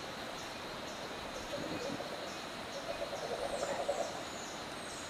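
Rainforest ambience: a steady hiss of insects with a short high chirp repeating about twice a second, and a faint rough call in the middle of the range about three seconds in.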